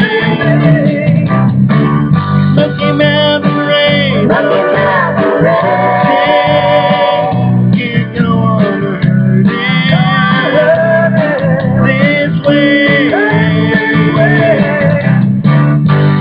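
Country-style karaoke backing music with plucked guitar and bass playing steadily.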